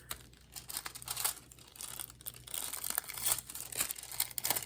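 Paper crafting materials being handled: irregular rustles and crinkles, sparse at first and busier in the second half.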